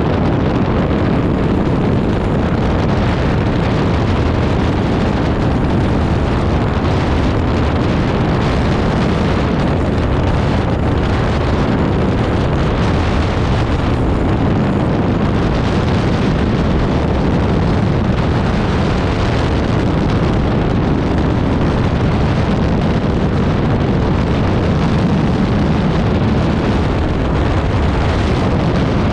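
Wind buffeting the microphone of an Aerolite 103 open-cockpit ultralight in steady cruising flight, with the aircraft's engine running steadily underneath.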